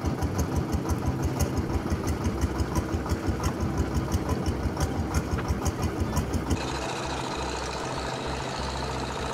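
A long-tail boat's engine running with a fast, even beat of about six pulses a second. About two-thirds of the way through, the beat gives way to a steadier, smoother sound.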